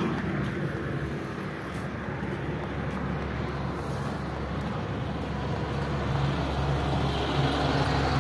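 Steady low hum of road traffic or a running vehicle engine, growing a little louder near the end.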